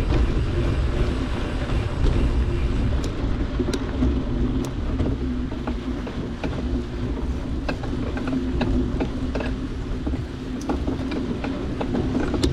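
Bicycle riding over a dirt trail: a steady low rumble of wind and tyres, with scattered clicks and rattles from a bike chain that sounds terrible.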